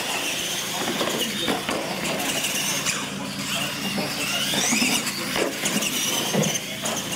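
R/C monster trucks' motors and gears whining at full throttle as they race, the high whine rising and falling in pitch with speed.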